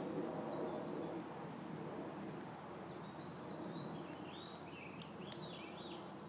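Bird calls: a quick run of short chirps between about three and five and a half seconds, over a low steady outdoor rumble, with two sharp taps.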